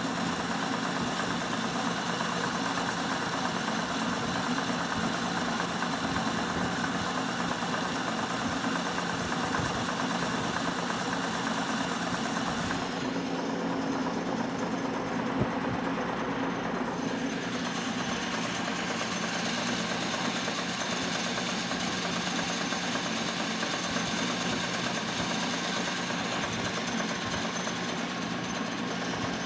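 Metal lathe running steadily, a constant motor hum with a high whine over it. The high part drops away for a few seconds in the middle, with a single sharp click about halfway.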